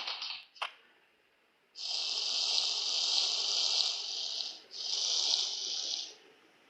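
Water running, in two spells: a steady flow of about three seconds, a brief break, then about a second and a half more. A short click comes just before it.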